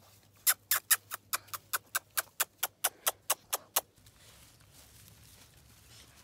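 Hound puppy gnawing at a boot and its laces: a quick, even run of sharp clicking bites, about five a second, that stops about four seconds in.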